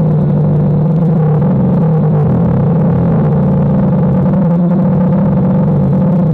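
DJI Phantom quadcopter's propellers and motors buzzing in flight, a steady pitched hum that shifts slightly in pitch as the rotor speed changes.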